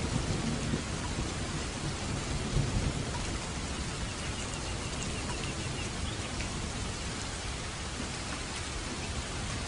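Steady heavy rain, with a low rumble of thunder that dies away over the first few seconds.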